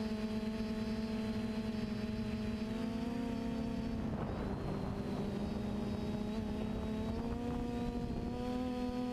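FPV quadcopter's motors and propellers whining steadily, the pitch shifting slightly up and down with the throttle, with a brief rush of noise about four seconds in.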